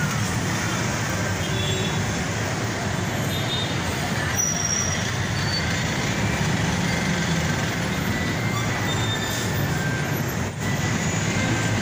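Steady roadway noise from a gridlocked city street of idling jeepneys, buses, cars, tricycles and motorcycles: a continuous low engine rumble with a few brief faint high tones.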